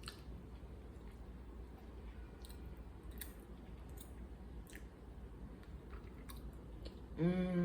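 A person chewing food with soft, scattered mouth clicks. Near the end there is a short hum of a voice, as of someone enjoying the taste.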